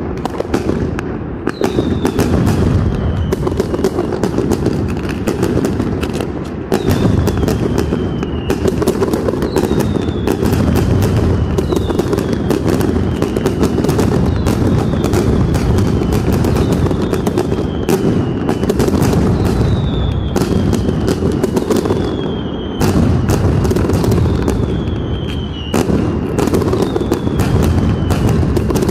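Mascletà fireworks by Pirotecnia Nadal-Martí: a dense, unbroken barrage of firecrackers exploding in rapid succession. Short falling whistles repeat every second or two through the din.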